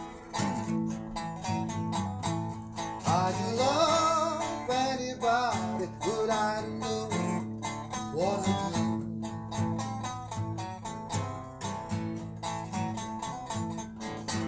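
Blues band playing an instrumental passage: guitar and bass over a steady drum beat, with a lead line of bent, wavering notes.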